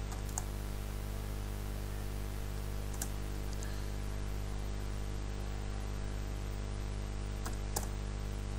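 Steady low electrical hum with a handful of faint, sparse clicks from a computer keyboard as text is typed.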